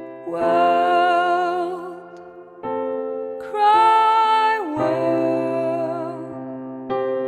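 Keyboard chords, held and restruck a few seconds apart, with a woman's wordless singing over them: two long notes with vibrato, the second sliding down in pitch at its end.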